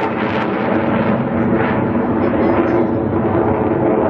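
Single-engine jet fighter, a Denel Cheetah C with its Atar 09K50 turbojet, running as it climbs away, a steady loud rumble that grows duller as the highest sounds fade.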